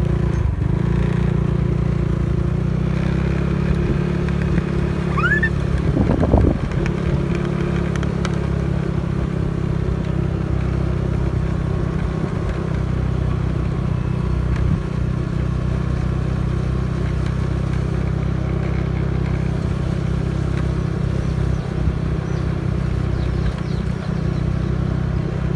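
Small motorcycle engine running steadily while riding at low speed. There is a short rising squeak about five seconds in and a brief louder noise around six seconds.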